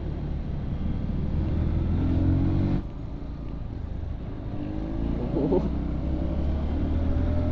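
Motorcycle engine running under throttle, heard on board the moving bike over a steady rush of riding noise. The engine note climbs as the bike accelerates, the level drops suddenly about three seconds in, and the pitch climbs again in the second half.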